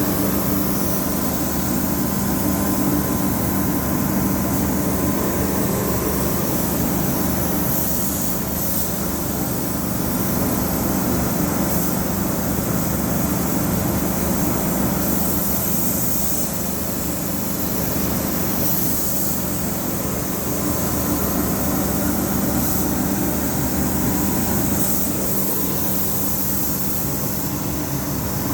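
Air compressor running with a steady hum under a constant high hiss that swells briefly a few times, typical of spray-painting with a compressor-fed spray gun.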